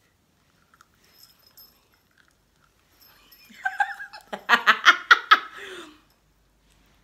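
A young woman laughing, a run of quick pulsed bursts that starts about three seconds in and lasts about three seconds.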